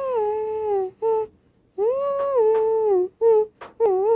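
A high wordless voice humming a tune from a cartoon soundtrack, played through a phone's speaker. It holds long notes that slide down in pitch, with a few short notes between them.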